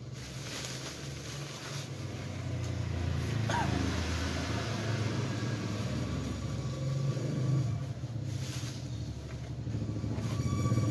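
A motor vehicle's engine running, a low rumble that grows gradually louder.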